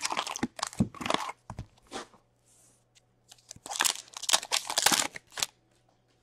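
Trading-card packaging being torn open and crinkled by hand: a hockey card pack's wrapper ripped and crumpled in two spells, the second, about halfway through, the louder.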